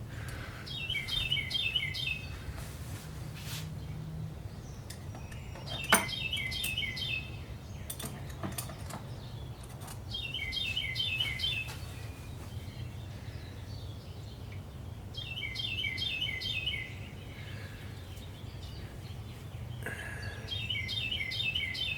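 A songbird singing a short phrase of several quick chirps, repeated about every five seconds, over a steady low hum. A sharp click about six seconds in and a fainter one a little later.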